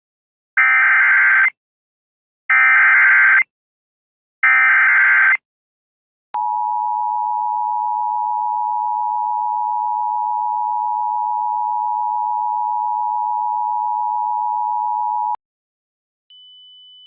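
Emergency Alert System SAME header: three warbling data bursts of about a second each, a second apart. Then the EAS two-tone attention signal holds steady for about nine seconds and cuts off sharply. A faint high beep comes just before the end. Together they are the digital header and alert tone that open an emergency alert broadcast.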